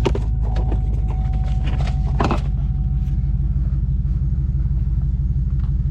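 Chevy Silverado engine idling steadily, just started on a newly programmed transponder key, so the truck's immobilizer accepts the key. A thin steady tone runs over it until about three and a half seconds in, with a couple of brief clicks.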